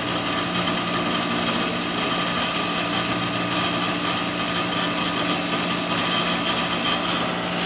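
Outdoor condensing unit of a 3-ton R-410A split system running steadily, its compressor humming under a rush of air from the condenser fan. The compressor is pumping the refrigerant into the condenser and pulling the shut-off suction side into a vacuum during a pump-down.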